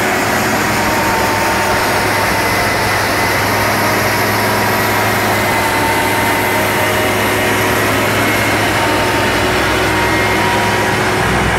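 New Holland T7200 tractor running steadily at working speed, driving a stone crusher: a loud, unbroken drone with a thin steady whine over it.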